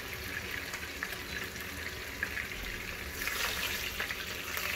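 Fish frying in hot oil in a pan, a steady sizzle that grows louder about three seconds in as a second piece of fish goes into the oil.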